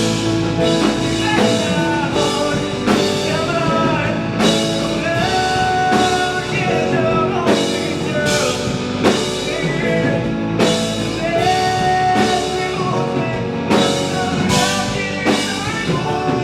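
Band music from a live rock ballad: electric guitar, bass and drum kit playing steadily, with a gliding melody line over them.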